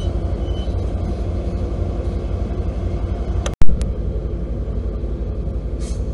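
Amtrak California F59PHI diesel locomotive running, a steady low rumble with a throbbing pulse. About three and a half seconds in there is a sharp dropout and a loud click at an edit, and near the end a short hiss of air.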